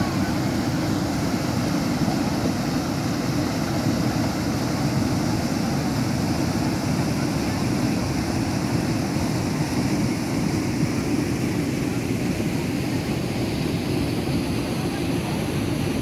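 Floodwater rushing over the rocks of a weir spillway, a steady, unbroken low rush of rapids running high with a lot of water.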